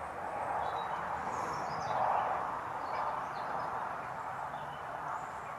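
Outdoor rural ambience: a steady rushing noise with a few faint bird chirps over it.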